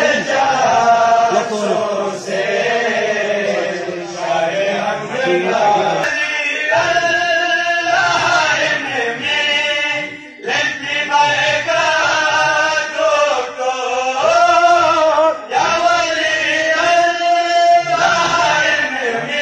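Male voices, a small group, singing a devotional kalam in a chant-like melody. The phrases are long and sliding, with brief pauses for breath between them.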